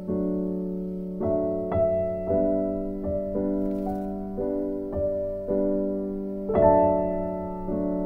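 Slow solo piano background music: single notes and chords struck one after another, each left to ring and fade.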